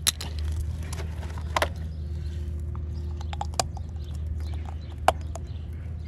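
A few sharp plastic clicks and taps as a floating centre cap is handled and pressed by hand into the centre bore of an alloy wheel, the loudest about five seconds in as it is pushed home. A steady low hum runs underneath.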